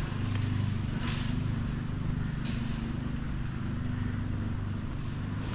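Pressure-washer engine running at a steady speed with a low, even hum. Two light scuffs come about one and two and a half seconds in.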